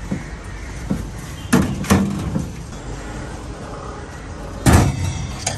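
A few sharp knocks and clatters of objects set down on a stainless-steel stall counter among steel pots: two close together about a second and a half in, the loudest near the end, over a steady low background hum.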